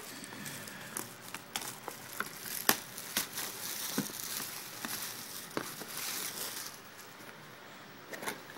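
Cardboard box and plastic packaging being opened and handled: crinkling and rustling with scattered clicks and taps, one sharp click about two and a half seconds in. It goes quieter for the last second or two.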